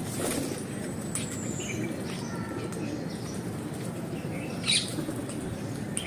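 Caged parakeets, a rose-ringed and a red-breasted parakeet, giving a few short high chirps and squeaks with some wing fluttering. The loudest is one sharp squeak near the end.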